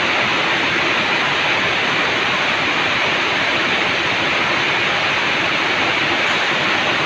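Steady, even hiss that holds at one level without a break.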